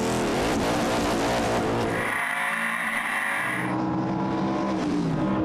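Ford-powered prototype race car engine, the revs rising and falling as the car pulls away. After an abrupt change about two seconds in, it holds a steady note at speed.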